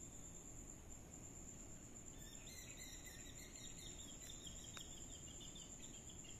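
Faint insect chirping: a quick run of short repeated chirps that starts about two seconds in and stops near the end, over a steady thin high-pitched tone. There is one small tick midway through the chirping.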